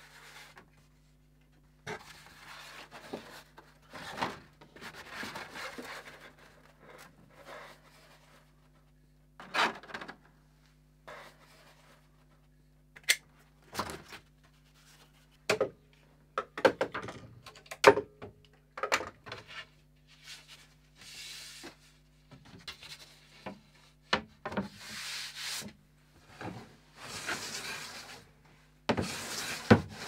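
Workshop handling sounds on a wood blank: scattered rubbing and sharp clicks and knocks as clamps are set, then several hand-plane strokes shaving wood near the end. A faint steady hum runs underneath.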